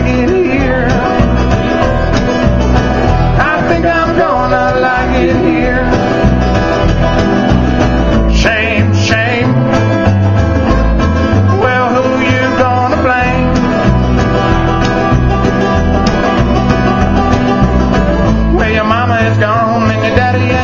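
Live bluegrass band playing: strummed acoustic guitar, mandolin and upright bass.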